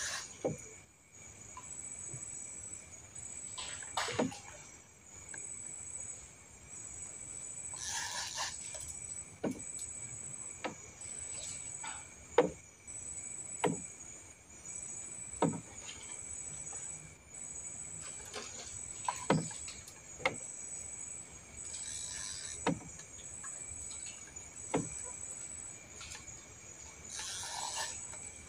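Steady high-pitched chirring of night insects, with irregular sharp clicks every second or two as a spinning fishing reel and rod are worked against a hooked fish.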